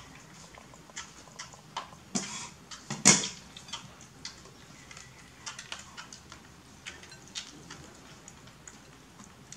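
Scattered light clicks and taps of food being handled on plates and a tray on a woven mat, with one louder knock about three seconds in.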